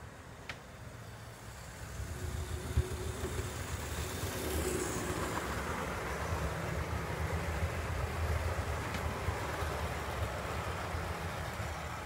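Model train running along the layout track, its motor hum and wheel rumble swelling about two seconds in, holding, then easing off near the end. There is a single sharp knock about three seconds in.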